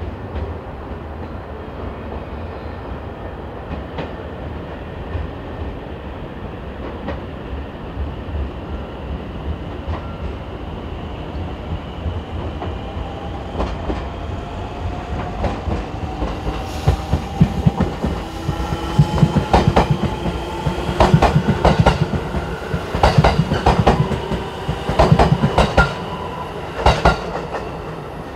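Electric train pulling away and picking up speed: a steady low hum, then a motor whine that slowly rises in pitch from about halfway. Wheels clack over rail joints louder and more often toward the end.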